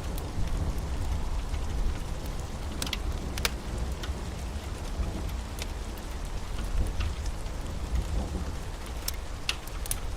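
Storm ambience: steady rain with scattered sharp drips and clicks over a continuous low rumble.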